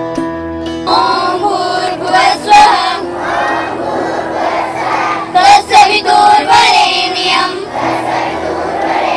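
Plucked-string music, sitar-like, stops about a second in. Then a group of children sings together in chorus.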